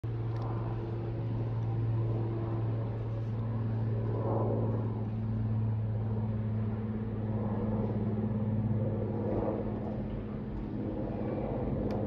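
Steady low mechanical hum holding an even pitch, with a second, higher steady tone joining about three seconds in.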